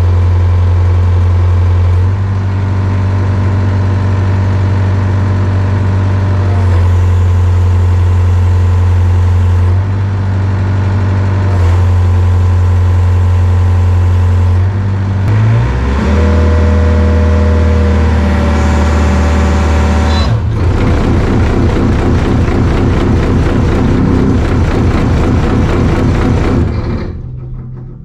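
Yanmar mini excavator's diesel engine running under throttle while its hydraulic pump loads against dead-ended test hoses. Its note and hiss shift each time the travel lever is worked. About two-thirds of the way in it settles into a rougher, pulsing run, and near the end the engine shuts off.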